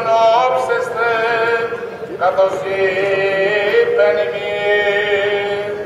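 A male voice chanting the Gospel in Greek Orthodox cantillation, holding long notes that step up and down in pitch.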